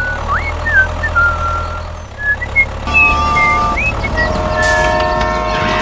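Dubbed tractor engine sound effect running steadily under the toy tractor, with chirping whistles over it and a held chord of steady tones from about three seconds in.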